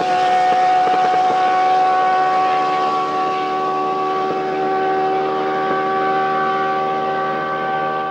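Williams Formula 1 car's Renault V10 engine holding one high, nearly constant note that creeps up only slightly as the car accelerates away. The continuously variable transmission keeps the engine at steady revs near peak power instead of shifting gears. A hiss from the spray fades as the car pulls away.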